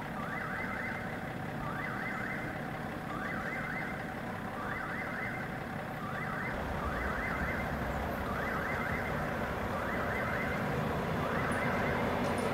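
Railway level-crossing warning bell ringing in short, evenly spaced bursts about once a second. A low rumble joins about halfway through.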